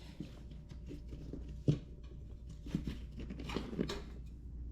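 Hands handling small tools and scooter parts: scattered light clicks, scrapes and rustles, with one sharper tap about a second and a half in.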